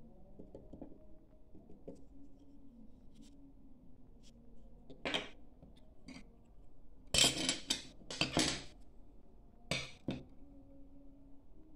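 Steel kitchen knives clinking and scraping against a glass tabletop: a few short, sharp clatters, one about five seconds in, a cluster around seven to nine seconds and one near the end, over a faint low hum.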